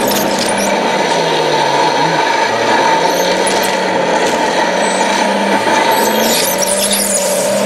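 Radio-controlled model excavator working: a steady electric motor whine, with brief high scraping squeaks about six seconds in.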